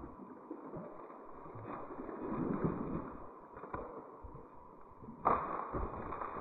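Legs wading through shallow swamp water, sloshing and splashing unevenly with each step.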